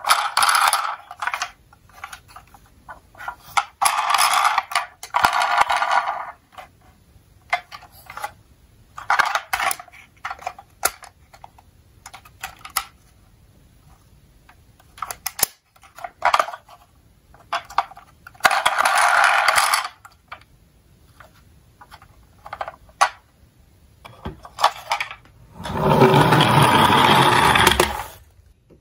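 A toy ambulance's electronic siren and sound effects from its small built-in speaker, set off in short bursts of a second or two, several times over. Between the bursts come clicks of hard plastic being handled and the rear doors opened. Near the end comes a longer, louder, fuller sound of about two seconds.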